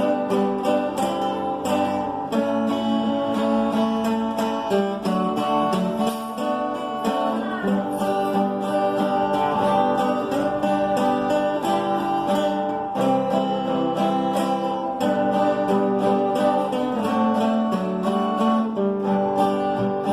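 Instrumental break on acoustic guitars: a picked melody over a steady strummed rhythm, with no singing.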